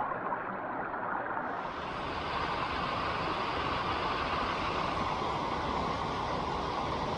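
Mountain stream rushing over rocks and a small cascade, a steady rush of water that turns closer and brighter about a second and a half in.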